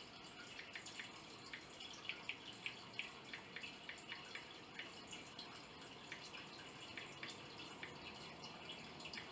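Faint, irregular light clicks of fingers typing on a smartphone touchscreen, several a second, running in two spells with a short lull between them.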